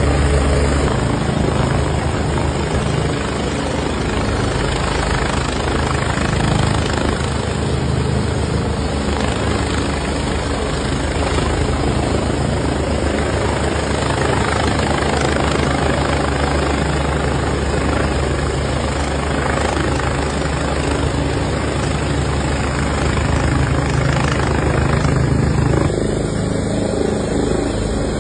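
Helicopter hovering close by, its rotor beating steadily over continuous engine and rotor-wash noise. Near the end the low rotor thump eases off.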